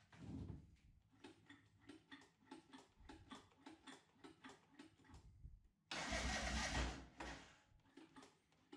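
Bevel-drive Ducati V-twin being cranked over, with an even pulsing of about four or five strokes a second. About six seconds in it fires and runs for a second or so, then dies away: an attempt to start it after an oil and spark plug change.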